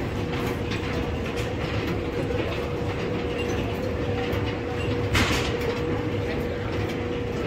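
Airport baggage carousel running: a steady rumble and rattle of its moving metal slats, with a steady motor hum.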